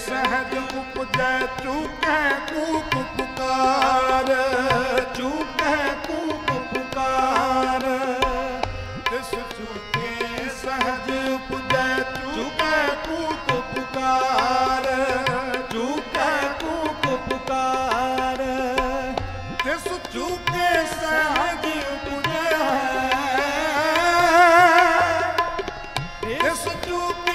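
Sikh Gurbani kirtan: harmoniums and tabla playing, with a wavering melodic line that sounds sung over them.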